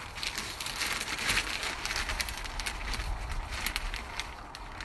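Multi-purpose compost being scooped and tipped into a plastic tub: a steady rustle of many small ticks and scrapes.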